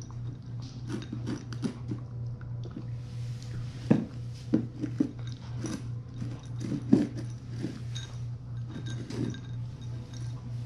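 Eight-week-old Rottweiler puppy crunching dry kibble from a glass bowl: a steady run of irregular crunches and chews, with a couple of louder crunches partway through.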